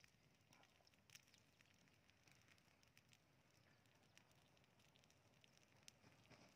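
Very faint crackling of a burning rice-straw pile heaped up to grill fish, a few scattered sharp pops over a low hiss.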